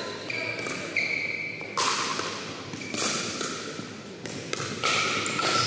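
Pickleball rally in a gym: several sharp pops of paddles striking the plastic ball, each with a hall echo, and short high squeaks of sneakers on the hardwood floor between hits.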